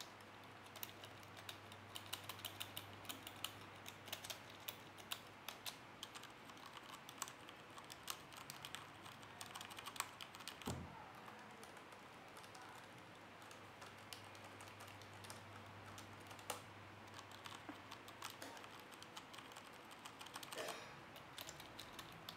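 Fast, irregular typing on computer keyboards, Cherry MX mechanical-switch keyboards and a rubber-dome keyboard, played in turn for comparison. A short pause with a low thump comes about halfway through, fitting a change of keyboard.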